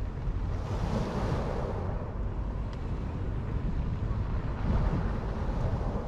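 Ocean surf washing onto the shore, swelling twice: about a second in and again near the end. Wind rumbles on the microphone underneath.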